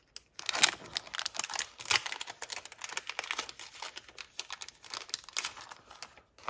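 Thin plastic packaging crinkling and rustling as sticker sheets are handled, in dense irregular crackles that start about half a second in and thin out near the end.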